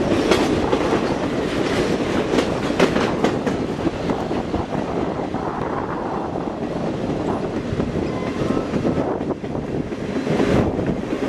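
Steady rumble and clatter of a train's wheels running on the rails, heard from aboard the moving train, with a run of sharp clacks over the first few seconds.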